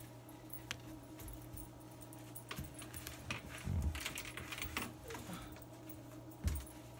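A rag wiping and knocking against plastic sink drain pipes, with scattered light clicks and a few dull thumps, over a steady low hum.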